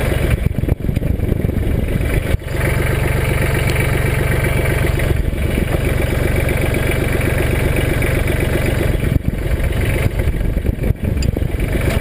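Mahindra Max 25 compact tractor's diesel engine running steadily while its hydraulics are worked to raise a front-mounted snowblower into line with its mounting slot.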